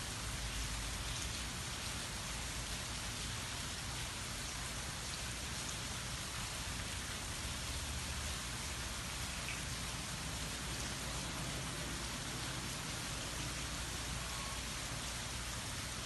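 Steady rain falling on trees, grass and a lake, an even hiss with a low rumble underneath.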